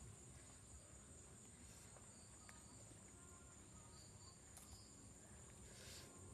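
Near silence: a faint, steady high-pitched chirring of forest insects, with a few soft clicks.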